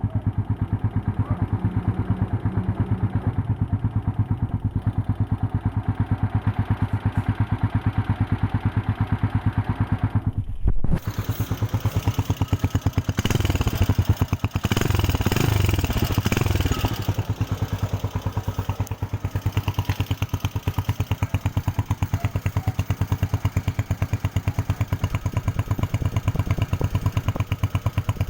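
Honda TMX 125 Alpha's single-cylinder four-stroke engine idling with an even pulse, revved up for a few seconds about halfway through, then settling back to idle.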